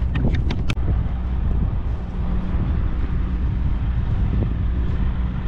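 A vehicle's engine running steadily with a low hum and road or wind noise over it, with a few short clicks in the first second.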